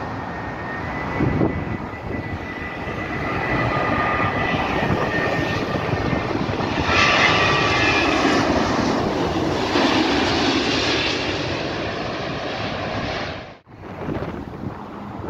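Boeing 787-9 airliner on landing approach passing low overhead, its Rolls-Royce Trent 1000 turbofans making a steady rushing jet noise with a high whine. The noise builds to its loudest about halfway through as the aircraft passes, then cuts off abruptly shortly before the end, leaving a fainter distant aircraft.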